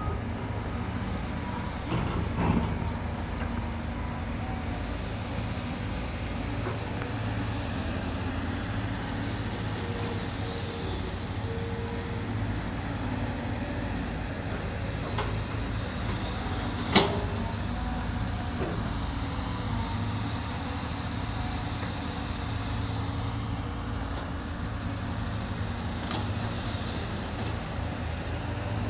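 Caterpillar hydraulic excavator's diesel engine running steadily as it digs. A sharp knock, most likely the bucket or boom, stands out about two-thirds of the way through, with a smaller one near the start.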